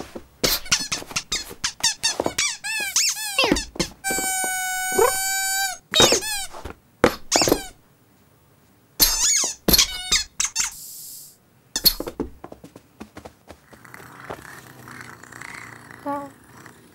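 Cartoon squeaky toy squeezed over and over in quick, pitched squeaks, with one long held squeak about four seconds in. The squeaking stops after about twelve seconds, leaving only faint sound.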